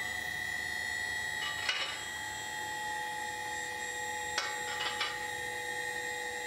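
Mobile column lifts raising a heavy truck: their drives run with a steady high whine. A few sharp clicks and rattles come about two seconds in and again around four to five seconds in.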